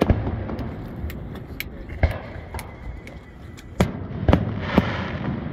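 Aerial fireworks shells bursting: a string of sharp booms at uneven intervals, coming closer together in the last two seconds, over a steady low rumble.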